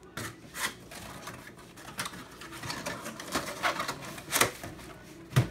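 Corrugated cardboard being handled: flaps rubbing, scraping and tapping in irregular bursts, with a louder knock near the end.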